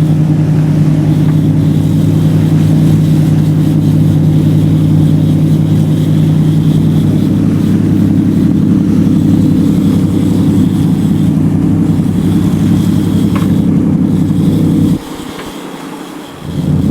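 An engine running steadily at a constant pitch. It drops away abruptly about fifteen seconds in and comes back a second and a half later.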